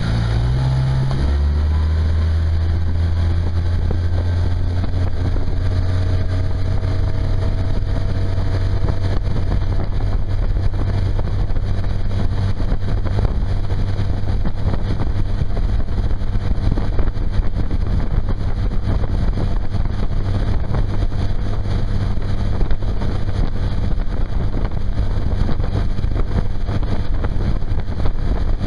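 Tohatsu four-stroke outboard motor throttled up about a second in, its pitch rising as the boat gets up to speed, then running steadily at speed, with wind on the microphone.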